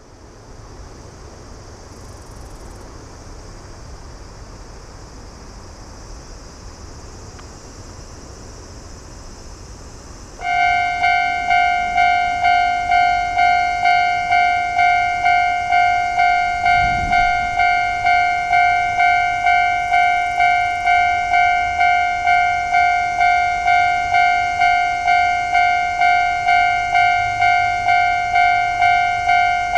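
Japanese railway level-crossing warning bell. It starts suddenly about ten seconds in and rings steadily at about two strokes a second, the signal that a train is approaching. Before it there is only a steady hiss.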